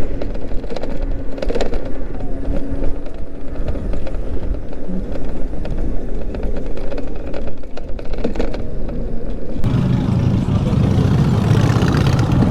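Wind rushing over the microphone with city traffic noise while riding an electric moped. About ten seconds in, a louder, throbbing low rumble sets in.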